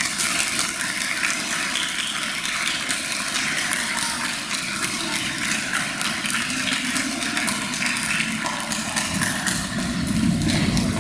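Audience applauding: a dense, continuous patter of many hands clapping, with a low rumble growing near the end.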